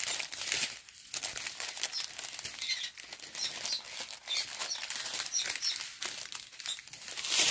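Small plastic bags of diamond-painting drills crinkling and rustling as they are handled.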